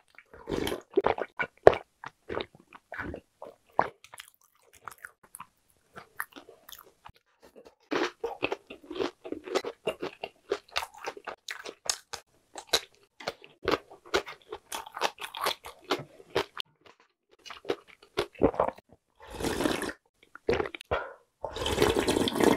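Close-miked eating: gulps and slurps of cold soba broth drunk straight from a tipped bowl, with crisp crunching and chewing of a pickled radish slice in between. Two longer, denser bursts of slurping come near the end.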